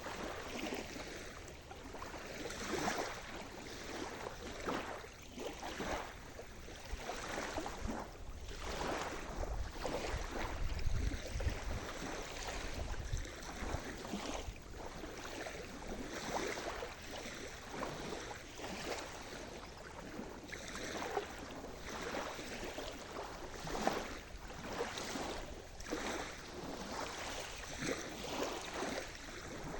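Sea surf: small waves washing and splashing in quick, uneven surges, with a low rumble around the middle.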